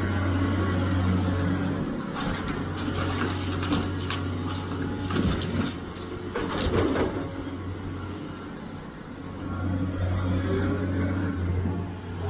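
Sumitomo SH490 excavator's diesel engine running with a steady low drone. The drone eases from about two seconds in while soil and rocks clatter and knock, loudest about seven seconds in, and comes back strong near the end.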